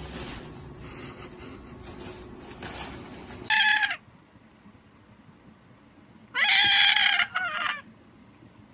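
A steady rustling hiss for the first three and a half seconds. Then a cat meows: one short call, and near the end a longer call followed by a shorter one.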